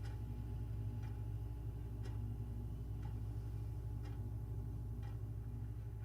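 A clock ticking about once a second over a steady low hum of room tone.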